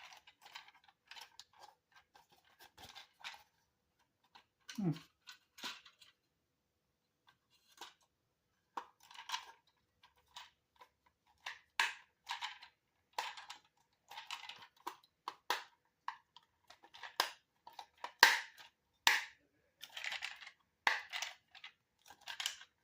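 Irregular rustling and clicking of toy packaging and plastic parts being handled, busier in the second half.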